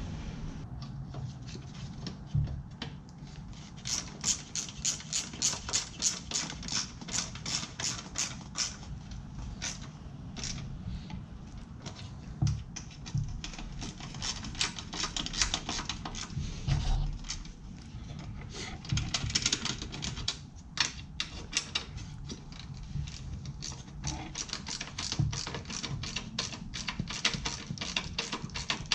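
Hand ratchet clicking in long runs, about four clicks a second, as a bolt is turned, with a few dull knocks of metal in between.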